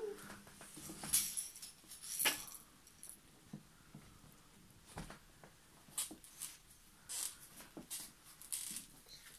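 Scattered rustles and small clatters of a baby moving among plush and plastic toys on a blanket in a playpen, with a few louder knocks about one and two seconds in.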